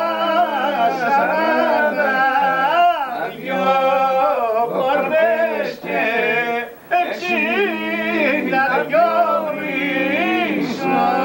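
A man singing unaccompanied, holding long notes and bending them up and down in ornamented turns, with short breaks for breath.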